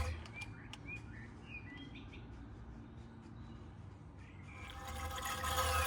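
Syringe drawing old gear oil out of a rear differential's fill hole: short faint squeaks from the plunger, then a louder, drawn-out squeaky suck building near the end.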